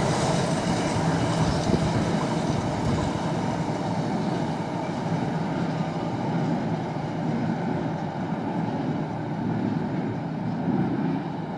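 A train running through on the line with steady wheel and rail noise, its hiss slowly dying away as it passes.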